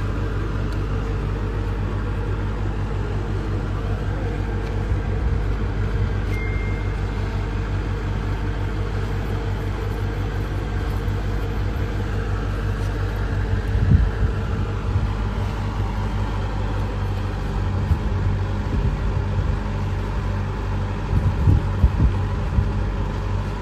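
Steady low engine hum, like a motor vehicle running, with a few knocks about fourteen seconds in and again near the end.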